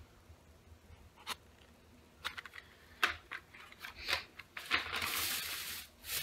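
Plastic shopping bag and packaging rustling and crinkling as items are handled, with a few sharp clicks and taps first and a longer spell of rustling near the end.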